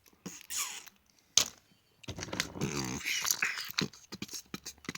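Plastic action figures being handled, with irregular clicks, knocks and rustling. A denser stretch about two seconds in carries a brief wavering pitched sound.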